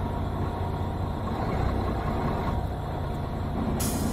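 Fishing boat's engine running steadily, a low even hum. Near the end a brighter hiss joins it.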